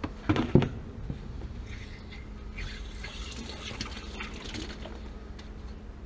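Water running out of a shut-off tank water heater into a plastic bucket to break its pressure, a steady pouring hiss. A couple of knocks about half a second in.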